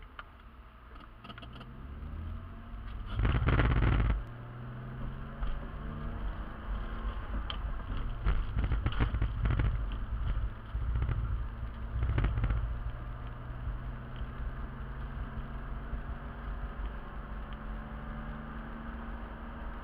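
Car driving, heard from inside the cabin through a dash camera: steady engine hum and road noise. There is a loud low rumble about three seconds in, and several knocks and louder rumbles around eight to thirteen seconds.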